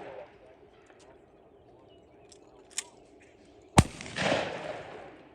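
A single gunshot about four seconds in, followed by an echo that rolls on for about a second. A lighter, sharp click comes about a second before the shot.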